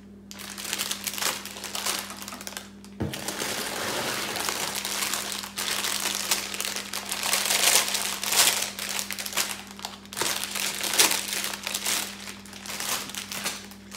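Plastic bags full of LEGO pieces crinkling and rustling as they are handled and sorted, with a soft thud about three seconds in as a bag is set down on the counter.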